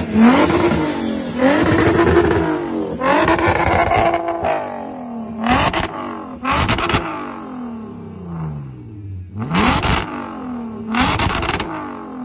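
Car engine with a loud competition exhaust being revved in about seven blips, each climbing in pitch and then falling back. The later blips are short and sharp.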